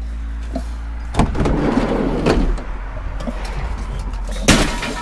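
A vehicle's sliding door rolls along its track for about a second, then a single sharp slam near the end, over a steady low rumble.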